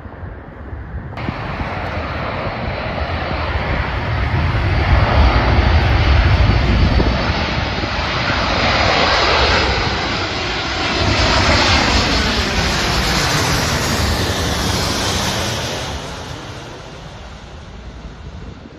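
Airplane engines passing close by: the sound builds over the first few seconds, stays loud with a second swell in the middle, then fades away near the end.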